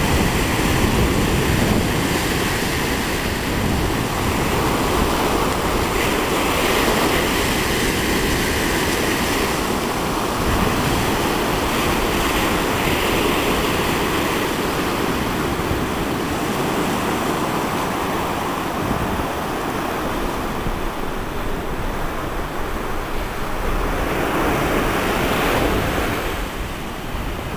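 Ocean surf breaking and washing up on a sandy beach: a continuous rushing wash that swells and eases as waves come in, with wind buffeting the microphone.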